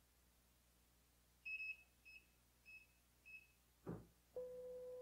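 UP Box+ (Afinia H800+) 3D printer giving four short, high beeps about every half second while its initialize button is held. Then comes a single knock and a brief steady lower tone as the printer starts initializing. All of it is faint.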